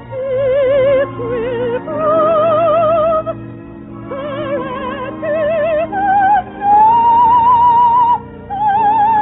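Operatic soprano voice singing an operetta song with orchestra, in phrases of sustained notes with wide vibrato. About two-thirds of the way through she climbs to a long held high note, then drops back.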